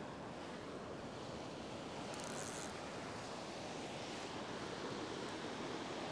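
Steady rush of low surf and shallow water washing over the beach, with a short high hiss about two seconds in.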